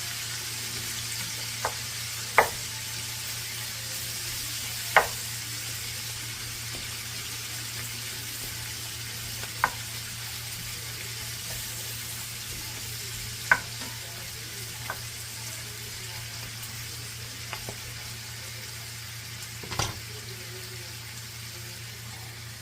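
Chopped cabbage sizzling in hot bacon fat in a cast-iron skillet, a steady hiss over a low hum, while a utensil stirs and breaks it up, knocking sharply against the pan every few seconds.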